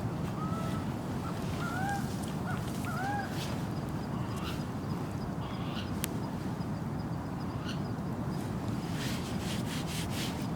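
A bird calling a quick series of short, arched whistled notes during the first three seconds, over a steady low rushing background. A few sharp clicks come near the end.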